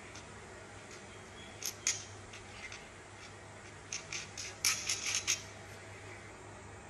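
Light metallic clicks and clinks of small metal parts and tools being handled: two about two seconds in, then a quick run of about eight a little past the middle.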